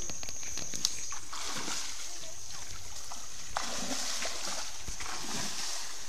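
Shallow creek water sloshing and splashing as a fishing sieve is worked through it.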